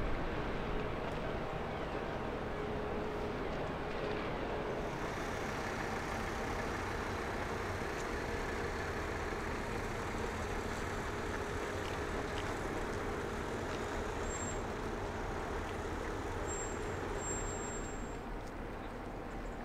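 Steady engine drone with a faint humming tone, the machinery of the large cruise ship and its escorting tugboat as they move along the river.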